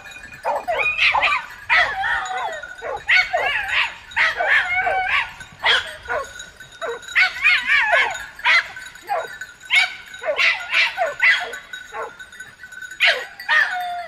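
A pack of hunting dogs giving voice together: many overlapping barks and drawn-out, wavering cries following one another with hardly a pause.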